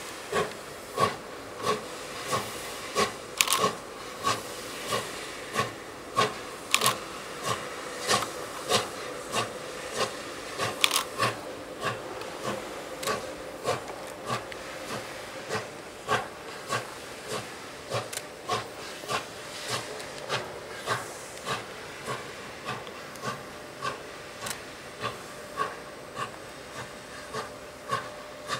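QJ-class 2-10-2 steam locomotive hauling a loaded coal train, its two-cylinder exhaust chuffing in an even rhythm of about one and a half beats a second over a steady steam hiss. A few sharp metallic clanks stand out in the first half.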